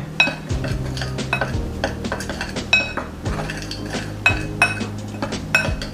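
A metal utensil clinking and scraping against a mixing bowl again and again, stirring dry flour, salt and sugar together, with light background music underneath.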